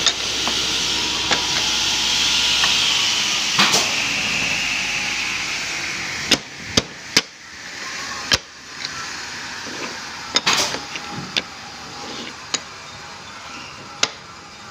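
Steady workshop machine noise that dies away about six seconds in, followed by about eight sharp, separate knocks as wood is worked by hand.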